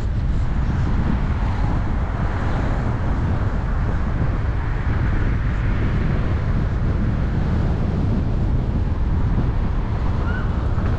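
Wind buffeting the microphone over the steady road noise of a car driving along, a constant low rumble with a hiss above it.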